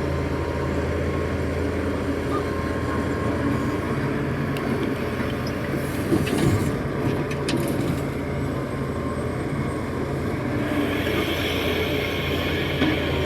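Hitachi 330 excavator's diesel engine running steadily while the machine works, with a few sharp knocks about halfway through and a hiss coming in near the end.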